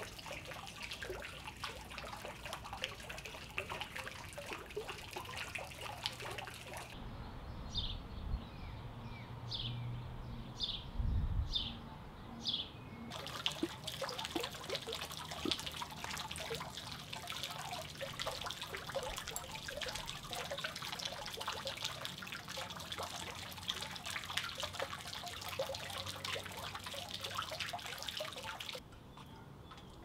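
Fountain water splashing and trickling into a tiled basin. In a stretch in the middle the splashing gives way to a bird's short chirps, about five of them, over a low rumble. The water sound then returns and cuts off shortly before the end.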